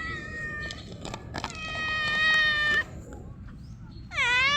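A stray cat meowing three times: a short meow, then a long, steady one, then a third meow that rises and falls in pitch near the end. A few sharp clicks come between the first two meows.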